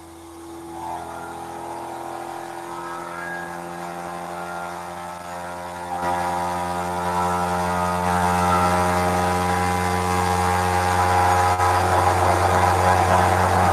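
Electric motor of a gyroscope apparatus spinning its rotor, a steady hum that grows louder about a second in and again about six seconds in. The rotor is being brought up to a steady spin before a weight is hung on the arm.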